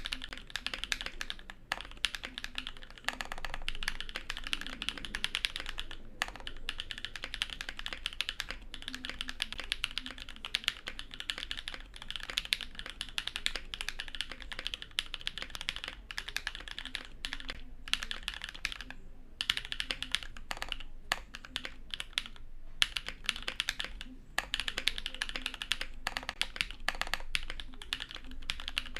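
Continuous typing on a 65% mechanical keyboard in an acrylic case, with lubed, filmed linear 'Gateron Burgundy' switches (Kailh Pro Burgundy long-pole stems in Gateron housings) and Everglide stabilisers. The keystrokes come as a steady stream of clicks, broken by a few short pauses.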